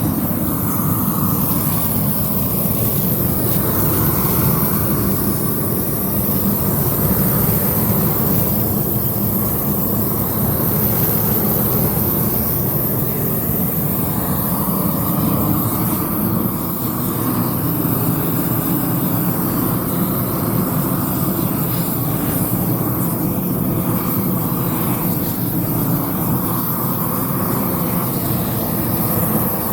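Diesel roofing burner running steadily and loudly, an even noise with no pauses.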